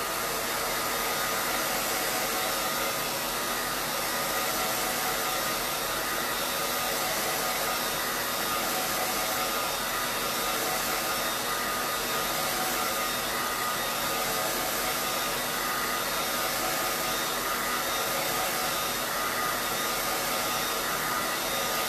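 Handheld hair dryer running steadily, an even rush of blown air with a steady high hum, drying wet paint.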